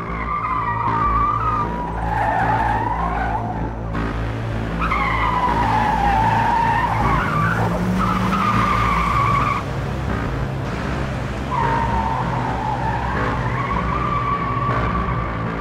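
Car tyres squealing on smooth concrete in several long, wavering screeches with short breaks between them, over a steady low hum.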